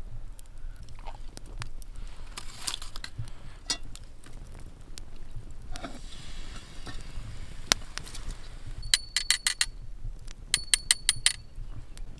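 Light metal clicks and scrapes of tongs working coals onto a cast-iron Dutch oven lid. Near the end come two quick runs of ringing metal clinks.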